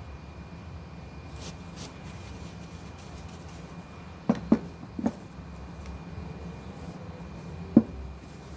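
A few short knocks of a ceramic serving dish being lifted and set down on a table: two close together about four seconds in, another half a second later and one more near the end. A steady low rumble runs underneath.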